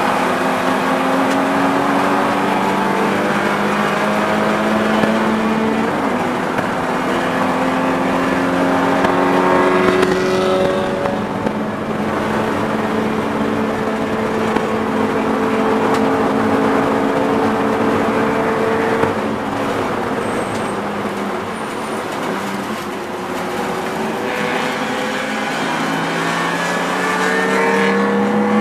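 BMW E36 race car's inline-six engine heard from inside the cabin, pulling hard and rising in pitch through the gears, dropping at each upshift. Partway through it eases off for a stretch, then climbs again near the end.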